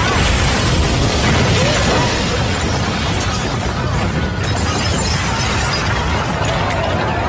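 Explosion sound effect: a loud blast rumbling on steadily, with debris crashing down through it.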